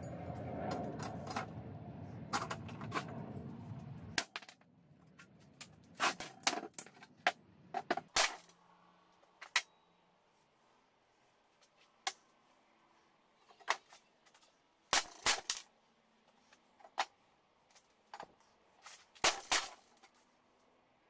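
Irregular sharp clacks and knocks of hard brick pieces handled and set down on a steel plate, some in quick clusters. A rough, steady noise fills about the first four seconds, then stops.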